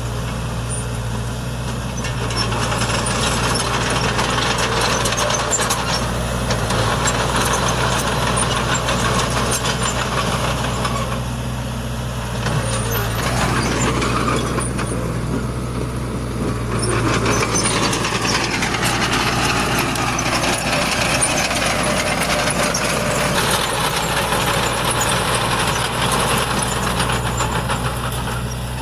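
Heavy diesel engine of earthmoving machinery running steadily. Its pitch rises and falls about halfway through as the engine speed changes.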